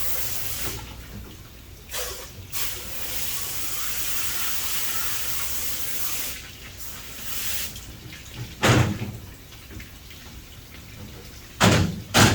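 Water spray hissing as a hose flushes out a cylinder head's water jackets, starting and stopping a couple of times. Then a few heavy knocks, the loudest sounds here, one about two-thirds of the way in and two close together at the end.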